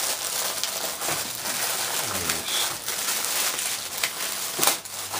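A thin plastic bag crinkling as hands open it and handle it, with a sharp crackle near the end.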